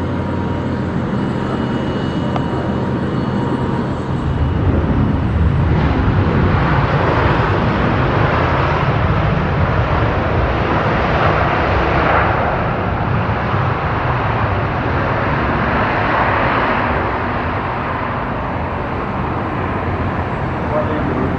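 Airbus A319CJ jet, powered by two IAE V2500 turbofan engines, landing and rolling out on the runway. Its steady jet-engine rumble grows louder about four seconds in and stays loud, with swells partway through and later on.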